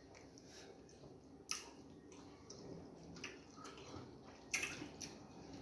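Eating sounds of fufu and egusi soup: faint wet smacks, squishes and mouth clicks, with a sharper smack about a second and a half in and a cluster of louder ones near the end.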